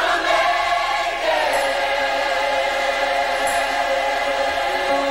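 Gospel choir singing a long sustained chord at full voice. The voices shift pitch about a second in, then hold one chord.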